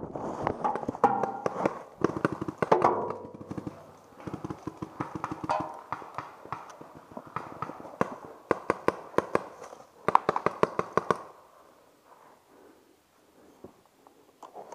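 Running steps through grass with gear rattling, then a quick run of sharp knocks and pops, paintball fire around the steel drum used as cover; it dies down near the end.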